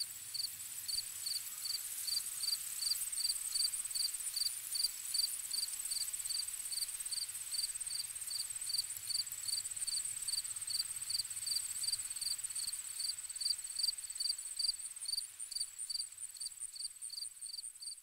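Night insect chorus of crickets: a steady high trill with an even chirp repeating about twice a second.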